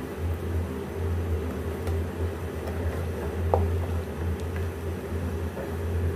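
A steady low hum, the loudest thing heard, under a wooden spoon stirring thick tomato-and-onion masala in a pan. One brief sharper sound comes about halfway through.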